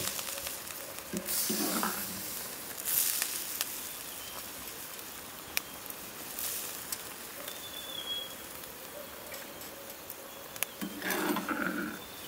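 Meat sizzling and bubbling in hot liquid in an iron wok, a steady hiss, with a metal ladle stirring and scraping the pan in a few short louder spells and clicks.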